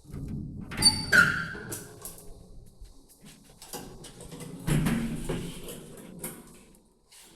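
Mechanical clunks from an old lift, with a brief high squeal that drops in pitch about a second in, and a second heavy clunk followed by a low rumble about halfway through, dying away near the end.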